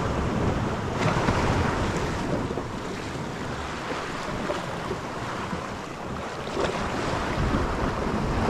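Sea surf washing against a rocky shore, with wind buffeting the microphone as a low rumble; the wash swells about a second in and again near seven seconds.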